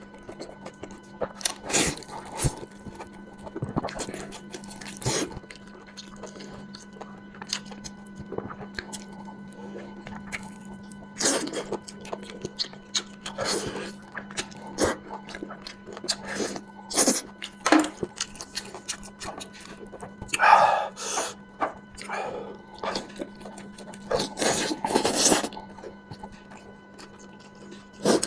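Close-up eating sounds of someone chewing hand-pulled mutton: irregular wet smacks, bites and chews, louder in a few clusters. A steady low hum runs underneath.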